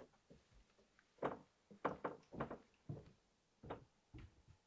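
Faint, irregular knocks and thuds on wood, about six over a few seconds, from someone moving about inside a wooden cabin.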